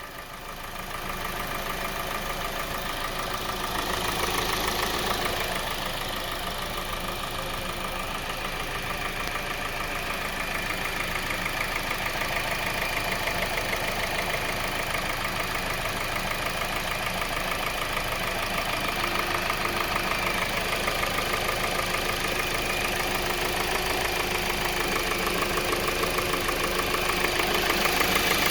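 2020 Kia Soul's 2.0L four-cylinder engine running at idle with a steady rapid knocking. This is piston slap, which the owner puts down to faulty piston rings and which later led to complete engine failure.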